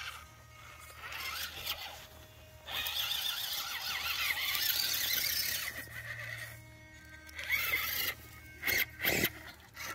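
ECX Temper Gen 2 RC rock crawler's electric motor and gears whining as it crawls over rocks, louder through the middle, with tyres scraping and knocking on stone. A few sharp knocks near the end.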